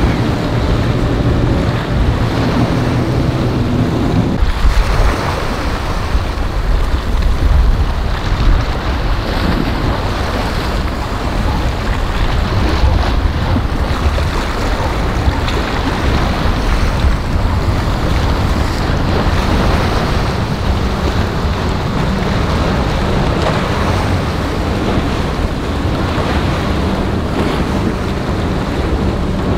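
Boat engines running in a rough inlet, with waves breaking and wind buffeting the microphone. A steady engine hum stands out for the first four seconds, then the rush of surf and wind takes over, with a low engine rumble underneath.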